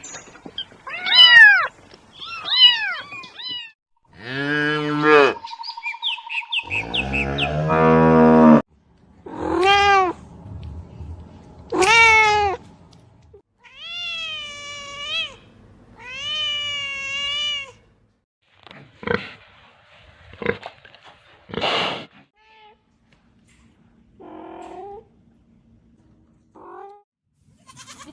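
A series of different animal calls, one kind after another, each a second or two long, with shorter and fainter sounds in the last third.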